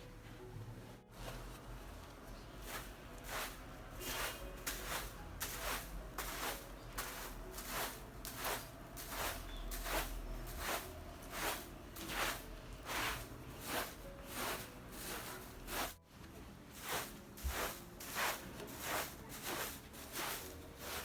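A regular series of short scuffing or rubbing strokes, about two a second.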